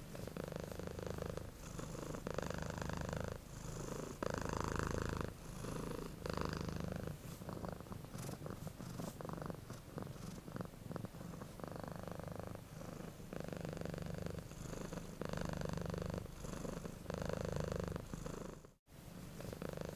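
Domestic cat purring steadily, swelling and easing with each breath every second and a half to two, in a sound effect mixed as 8D audio. It cuts out briefly about a second before the end.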